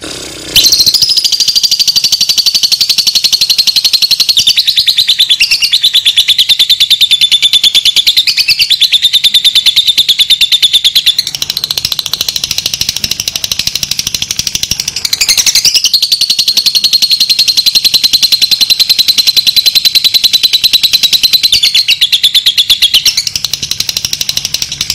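Fischer's lovebird singing a long 'ngekek': one continuous, very rapid high-pitched chattering trill. It starts about half a second in, drops quieter for a few seconds midway and then swells loud again.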